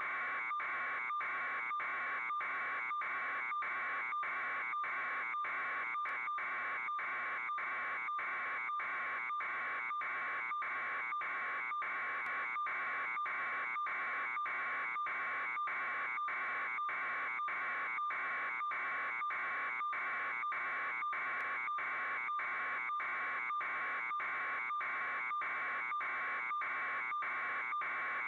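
Continuous buzzing drone that pulses evenly, somewhat under twice a second, unchanging throughout.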